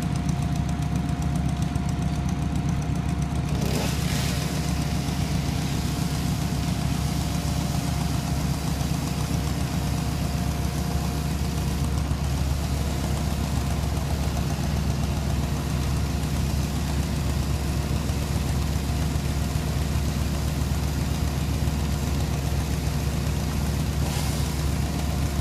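An engine running at a steady idle, a low even hum with a faint steady whine above it.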